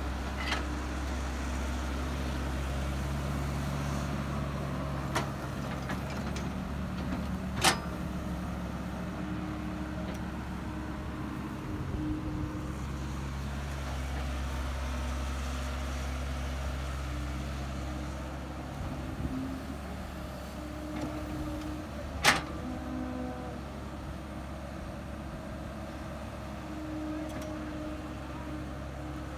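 Caterpillar E110B excavator's diesel engine running steadily under load while digging. Shorter higher tones come and go as the arm and bucket work. A few sharp knocks cut through, the loudest about a third of the way in and again past two-thirds.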